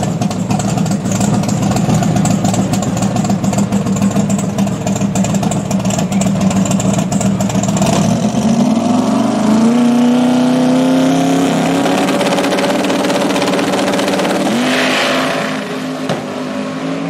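Twin-turbo V8 drag car running with a choppy, uneven beat at the starting line, then launching about eight seconds in: the engine note climbs and holds high as the car pulls away down the track. There is a further jump in pitch near the end, and the sound drops off as the car gets farther away.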